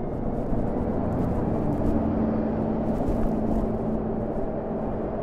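Steady wind and road rush from riding a Harley-Davidson LiveWire electric motorcycle, with a faint whine that comes up about two seconds in and holds.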